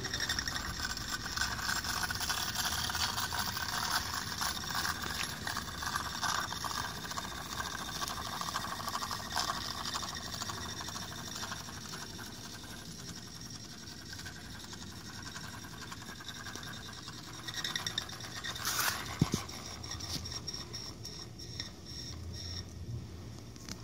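Miniature live-steam traction engine running, a fast even chatter of small exhaust beats over a steady steam hiss. About five seconds before the end there is a louder brief rush of noise with a sharp click.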